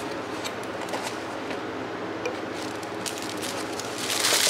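Tissue paper rustling and crinkling as it is handled and unfolded in a cardboard box, with scattered light clicks of handling. The loudest crinkle comes near the end.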